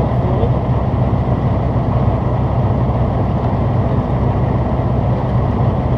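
FV432 armoured personnel carrier's engine running steadily, a loud, even low drone.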